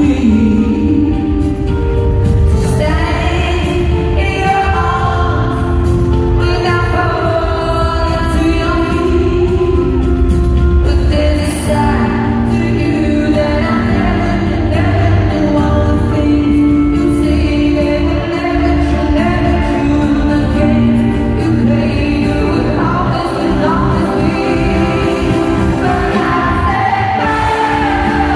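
A woman singing a pop ballad live into a microphone, backed by a full band with heavy bass, heard through a concert sound system from the audience.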